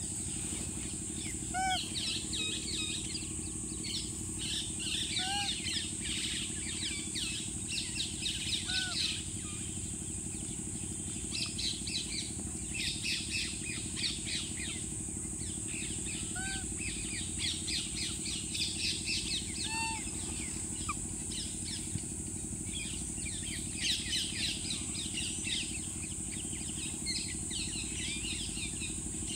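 Birds chirping in quick, dense runs that come and go in bursts, over a steady high hiss. A handful of short rising squeaky calls stand out now and then.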